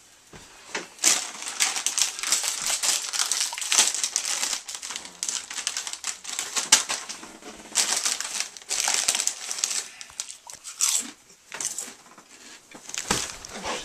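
Plastic chip bag crinkling and rustling in irregular bursts as it is handled and pulled open.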